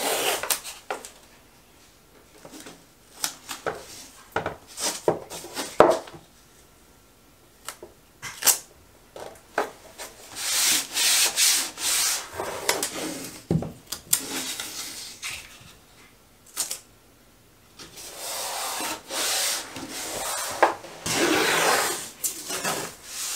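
Blue painter's tape being pulled off the roll and pressed and rubbed down by hand along a shower surround seam. Scattered crackles and taps come first, then two long stretches of steady scratchy noise, one around the middle and one near the end.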